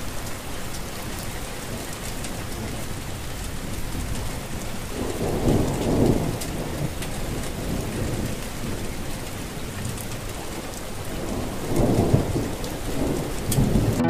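Steady rain with two low rolls of thunder, the first about five seconds in and the second near the end.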